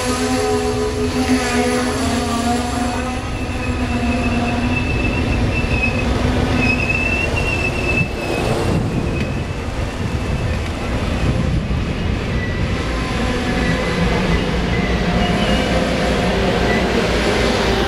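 Amtrak bilevel passenger cars rolling slowly past the platform as the train pulls in to stop, with a steady rumble and several drawn-out high squeals from the braking wheels, the strongest from about three to eight seconds in.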